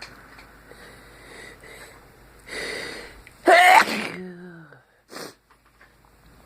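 A person sneezes once, loudly. A noisy intake of breath comes about two and a half seconds in, then the sharp voiced sneeze about a second later, trailing off in a falling voiced tone. A brief breath noise follows about half a second after.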